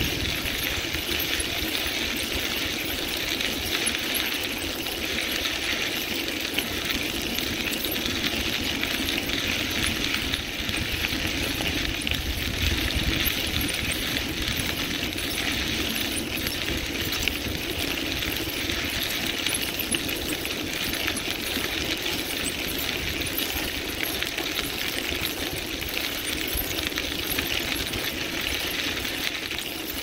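Bicycle rolling along a crushed-stone rail trail: a steady crunch and rattle from the tyres and frame, with a constant patter of small clicks.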